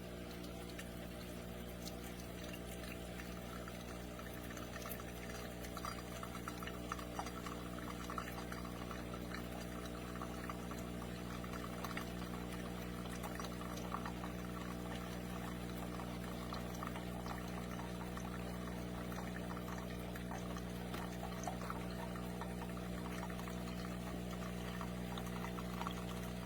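Cuisinart single-serve pod coffee machine brewing: a steady hum with coffee trickling and pouring into the cup. The trickling builds up about five seconds in.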